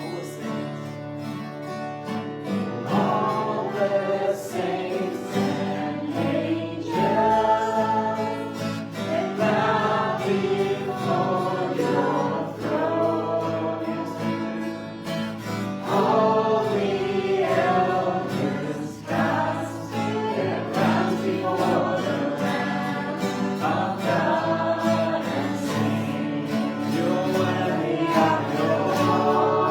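A congregation singing a worship song with guitar accompaniment.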